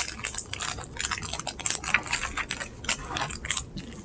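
Irregular soft clicks and rustles of snack wrappers and packaging being handled at a table, many quick small sounds with no steady rhythm.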